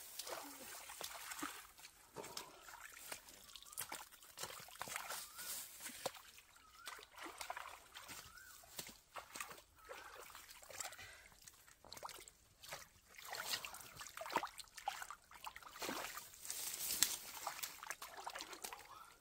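Shallow water sloshing and trickling, with many small irregular splashes.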